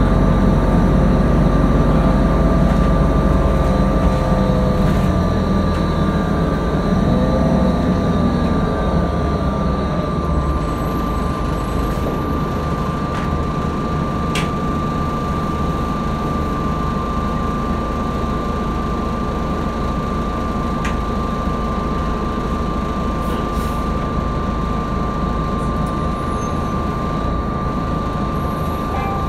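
Cabin sound of a New Flyer D60HF articulated bus on the move, with the drone of its Detroit Diesel Series 50 four-cylinder diesel and Allison B500R6 transmission. It is louder for the first several seconds, then settles into a steady low drone with a thin, steady high whine over it.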